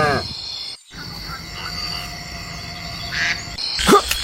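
A cow's moo trails off at the very start. Then comes a steady background of insects chirping with a low rumble. Near the end a run of quick, loud, rising-and-falling croaking calls begins.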